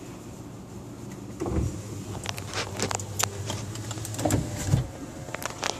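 Isuzu Rodeo engine running with a steady low hum, with a string of sharp clicks and a few thumps over it from about a second and a half in.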